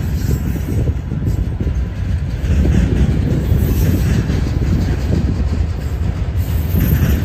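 Autorack freight cars rolling past close by: a steady low rumble of steel wheels on the rails.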